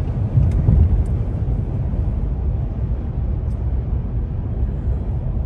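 Road noise inside a car's cabin at highway speed: a steady low rumble.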